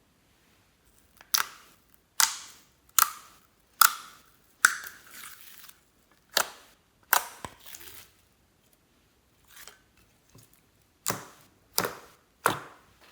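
Slime being pressed and squeezed by hand, giving a series of sharp, wet pops as trapped air bursts out, about a dozen in all with a quieter gap in the middle.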